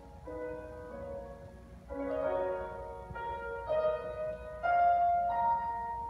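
Grand piano played solo, a slow melody of single notes and chords, played more strongly from about two seconds in.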